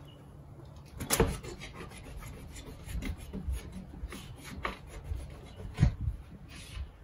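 A cloth rag wiping and rubbing window glass, heard as a series of separate short strokes.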